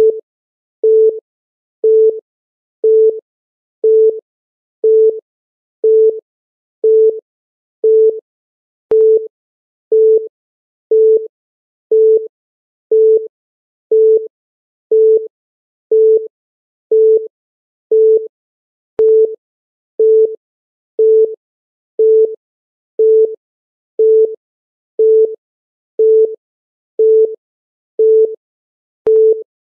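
Countdown timer's electronic beep sounding once every second, short and at the same pitch each time, marking off the seconds.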